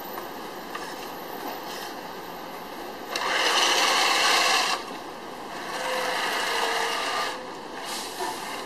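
Radio-controlled toy tank driving: its small electric drive motors and plastic tracks running and scraping over the pavement, with two louder spells, about three seconds in and again about five and a half seconds in.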